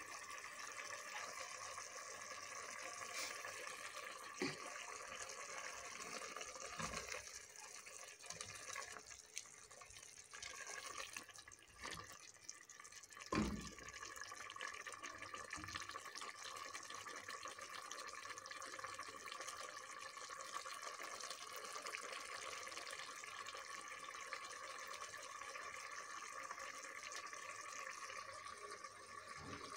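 Meat pieces frying in a spiced yogurt masala, sizzling steadily in a pot as they are stirred with a silicone spatula. A few soft knocks of the spatula against the pot come through, the plainest about a third of the way in.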